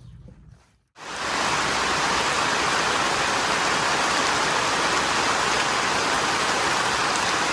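Heavy rain falling in a loud, steady hiss that starts abruptly about a second in.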